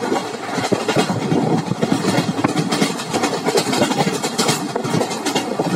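Train running at speed, heard from on board: a steady rush of wheel-on-rail noise with dense, irregular rattling and clatter.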